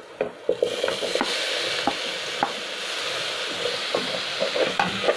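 Chopped tomatoes hitting hot ghee and fried onions in a metal pressure cooker pot and sizzling, the sizzle setting in about half a second in. A spatula clicks and scrapes against the pot as they are stirred.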